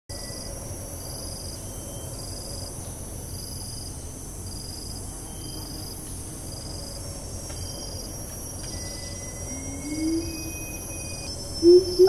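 Insect chorus: a steady high hiss with a short pulsing insect call repeating a little faster than once a second. Near the end a siamang starts to call, first a low rising hoot and then a louder hoot just before the end.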